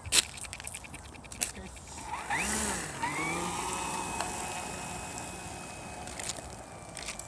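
A sharp click near the start. About two seconds in, a radio-controlled T-28 model plane's motor and propeller spin up with a whine that rises and dips, then settle into a steady hum that fades as the plane rolls away down the road dragging its brake parachute.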